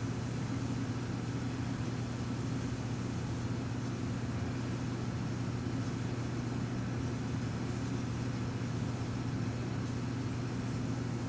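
A steady low hum with no change throughout, typical of room equipment such as a fan or air conditioner; the skewer swirling the soap batter makes no sound that stands out above it.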